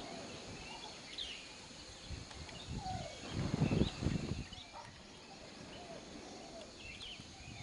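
Scattered bird chirps over outdoor background noise, with a brief low rumble about three seconds in that swells and fades within about a second.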